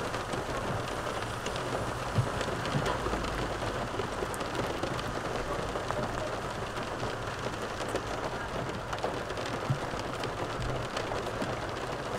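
Steady patter of rain on the car's roof and windows, heard from inside the cabin, with scattered fine ticks of drops and a few sharper clicks.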